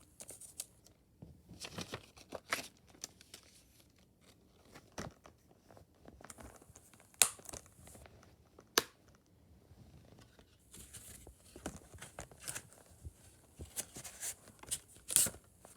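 Handling of a Blu-ray case and its paper inserts: paper and plastic rustling and crinkling, with scattered sharp plastic clicks and two louder snaps about 7 and 9 seconds in.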